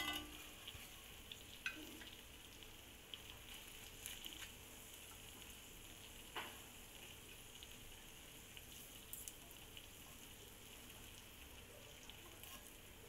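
Squid and prawns sizzling faintly in oil in a cast-iron pan, with a few light clicks of metal tongs against the pan as the pieces are lifted out.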